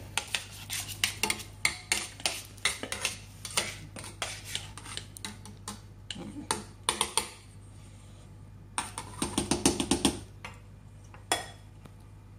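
A spatula scraping and knocking against stainless steel bowls as beaten egg whites are scraped from a mixing bowl into a pot of corn batter: a string of metal clinks and scrapes, with a quick run of clinks near the end.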